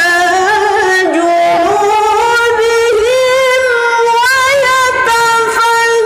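A woman's voice reciting the Qur'an in the melodic mujawwad tilawah style into a handheld microphone, drawing out one long held melodic line with wavering ornaments and small turns of pitch.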